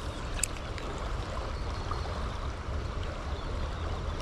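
Steady rush of water with a low wind rumble on the microphone, and a single light click about half a second in.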